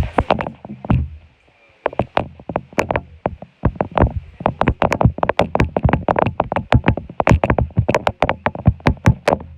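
Rapid, irregular sharp knocks and clicks, several a second, with a short pause about a second in.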